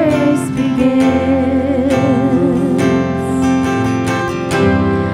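Music: acoustic guitar strumming under a sung melody of long held notes with vibrato.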